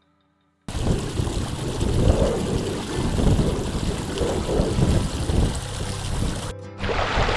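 Wind buffeting a phone microphone in heavy, surging gusts over the running of a shallow rocky moorland stream. It starts suddenly about a second in, and the sound shifts to a lighter, hissier water noise near the end.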